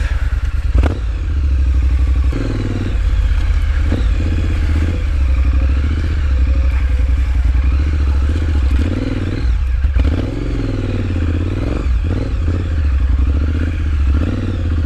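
Triumph Street Scrambler's 900 cc parallel-twin engine revving up and down as the bike is ridden over a muddy dirt trail, with a few knocks and clatters along the way.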